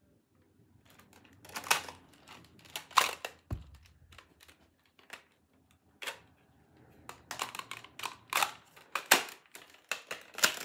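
Irregular plastic clicks and rattles of a single-shot Nerf blaster being handled and reloaded, with one dull thump about three and a half seconds in.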